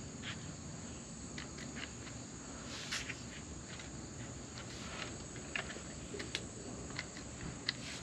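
Steady high-pitched trilling of crickets, with a few scattered light clicks and taps at irregular intervals.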